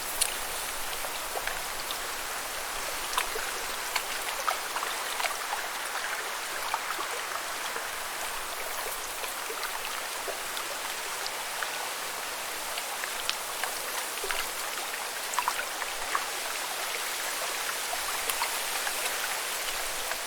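Lake water ambience: a steady watery hiss dotted with many small, sharp drip-like ticks and splashes.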